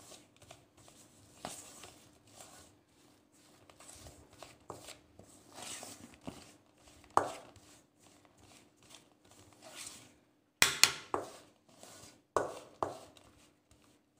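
Metal spoon scraping and clinking against a stainless steel mixing bowl, stirring dry spice powders and curd into a paste. A few sharper knocks of the spoon on the bowl come near the end.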